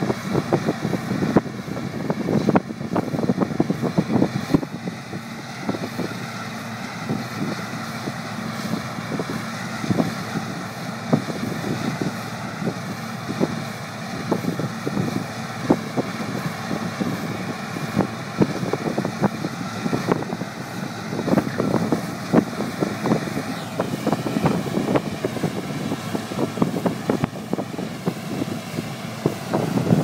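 Claas Lexion 600 combine harvester running steadily as it harvests wheat and unloads grain on the go, with irregular gusts of wind buffeting the microphone.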